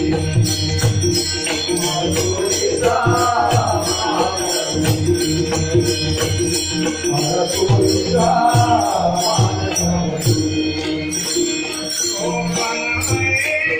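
Marathi abhang sung by a bhajan group: sung phrases over a steady held drone, with a rhythmic drum beat and small cymbals jingling in time.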